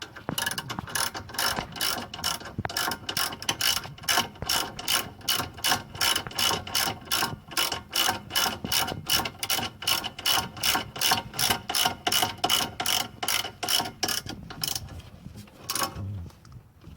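Hand socket ratchet clicking in a steady rhythm, about three clicks a second, as it runs in and tightens a 12 mm brake caliper bolt; the clicking stops about a second before the end.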